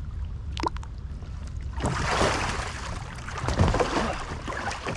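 Water splashing and sloshing as a capsized kayak with homemade float outriggers is rolled back upright by a swimmer beside it. The splashing starts about two seconds in and lasts about three seconds, with two louder surges.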